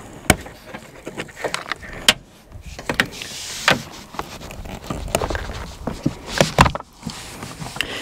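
Irregular clicks, knocks and rustles of an Acura's plastic door trim panel being held away from the door while its wiring harness connectors are unplugged behind it.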